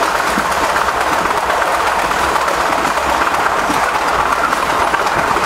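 Train running along the line, heard from aboard: a steady, even rush of wheel-on-rail and running noise.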